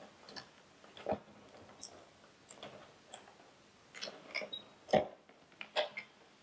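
Scattered plastic clicks and knocks as the black back piece is worked off an Infiniti G37 taillight housing. The sharpest knocks come about a second in and around five and six seconds.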